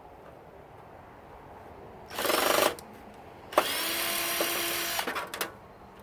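Power drill run twice in short bursts, spinning up quickly each time, the second run longer, as it backs out screws from a monitor's casing.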